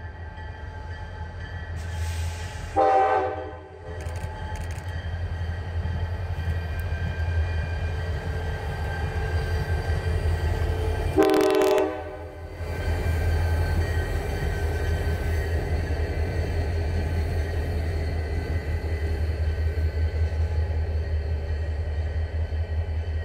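Two CSX diesel locomotives running light, without a train, pass close by with a steady low engine drone that grows louder as they go past. The locomotive horn sounds two short blasts, about 3 and 11 seconds in, the second one louder.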